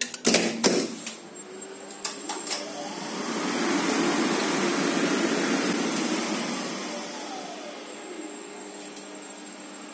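A few sharp clicks, then a geared lift traction machine runs a trip: its motor and gearbox speed up with a rising whine, run at full speed, and slow again with a falling whine to stop about eight seconds in.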